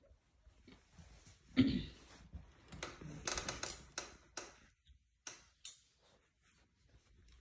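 Cockapoo puppy wriggling on its back on a wooden floor and mouthing a plush monkey toy: irregular rustling of fur and plush, small scratches and clicks, with one louder thump about a second and a half in.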